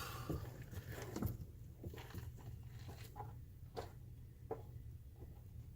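Scattered light clicks and knocks of hand tools being handled, over a low steady hum.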